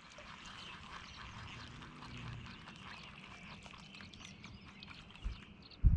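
A faint chorus of wild animal calls by the river, heard as a dense, irregular patter of small clicks and chirps, with a soft low thump about five seconds in and a sharp, loud thump right at the end.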